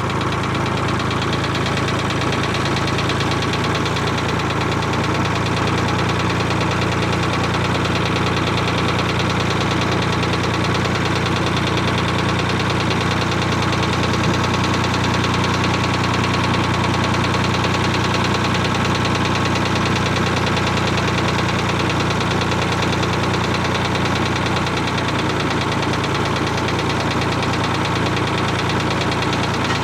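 Ford 4000 tractor engine running steadily at an even speed, on a test run of its newly refilled cooling system.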